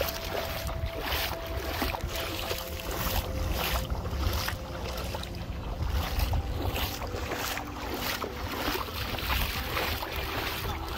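Wind rumbling and buffeting on the microphone, with shallow seawater washing around.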